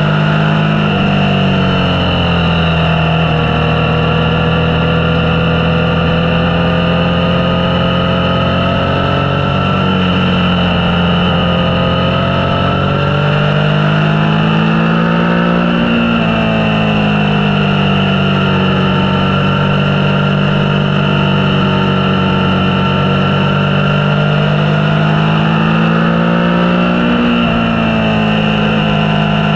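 Motorcycle engine running steadily under way, its pitch rising and falling gently as engine speed changes, with noticeable rises about halfway through and again near the end.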